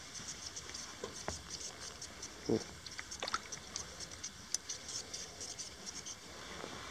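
Faint quick ticking, a few clicks a second, of an ice fishing reel being cranked as a small fish is reeled up through a hole in the ice, with a few soft knocks. The ticking stops near the end, once the fish is out of the water.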